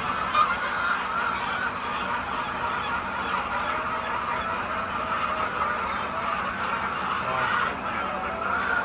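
A large flock of laying hens clucking and chattering without pause, many birds calling over one another, with one sharp click about half a second in.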